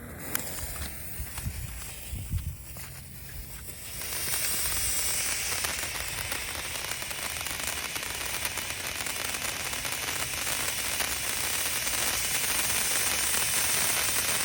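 Firework fountain: a few small clicks and low thumps, then about four seconds in it ignites into a steady hissing shower of sparks, full of fine crackling, that keeps going at full strength.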